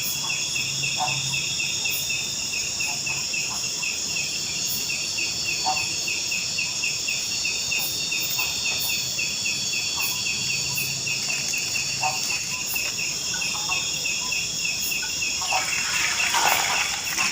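Forest insect chorus of crickets: steady high-pitched buzzing layered with a rapid pulsed chirping, about five pulses a second. In the last two seconds a rushing water noise rises over it.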